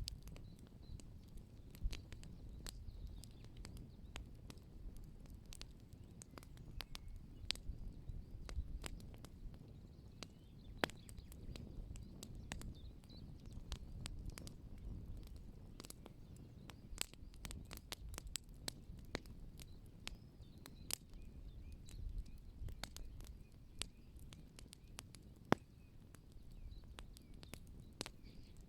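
Outdoor wood fire crackling, with many sharp irregular pops and snaps over a low steady rumble.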